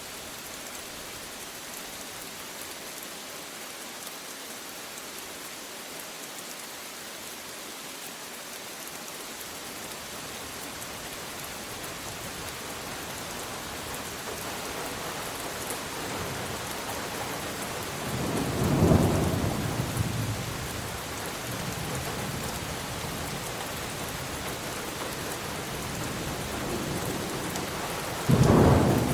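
Steady rain falling, with thunder rumbling in from about halfway through and two loud claps of thunder, one about two-thirds of the way in and one near the end.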